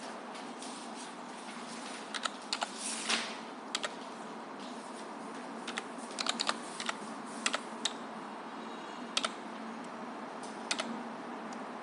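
Computer keyboard being typed on: scattered key clicks in a few short runs with pauses between, over a steady faint hum.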